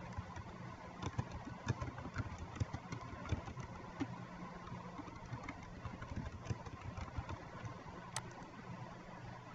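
Computer keyboard keystrokes: short, irregular clicks as a line of text is typed, with one sharper click near the end, over a steady low background hum.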